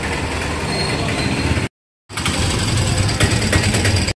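A vehicle engine running, with a steady low hum under a wash of road noise. It cuts out for about half a second partway through, then resumes.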